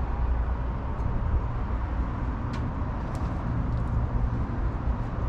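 Tempstar outdoor air-conditioner condensing unit running: a steady low hum with a hiss of fan air, and a few faint ticks.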